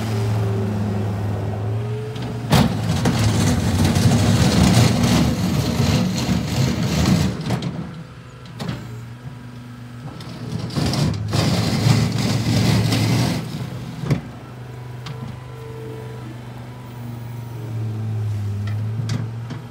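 John Deere 326D skid steer loader's diesel engine running steadily, with two long stretches of louder working noise and a few sharp clanks as the machine is operated.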